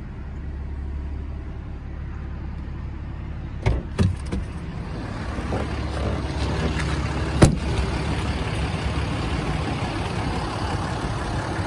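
Ram 5500's 6.7-litre Cummins turbo-diesel idling steadily. A cab door clicks open about four seconds in and shuts with a sharp knock about halfway through.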